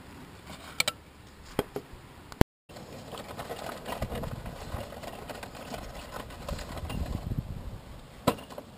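A few light metal knocks and clinks as a steel T-post is handled in its black ABS pipe guide. After a sudden cut, irregular scuffing and rustling as the worker moves beside the driven post, with one sharp knock near the end.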